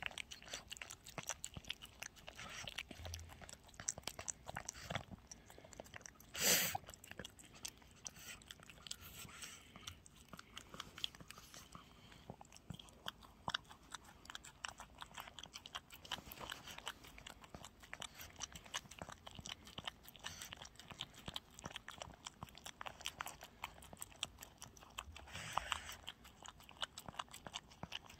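Small dog eating wet chicken porridge from a bowl: a steady run of small wet smacking and licking clicks. One louder, short burst of noise comes about a quarter of the way in, and a smaller one near the end.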